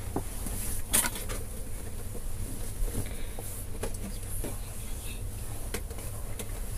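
Plastic toy packaging crinkling and crackling as it is handled and pulled open by hand, with scattered clicks and a sharper crackle about a second in.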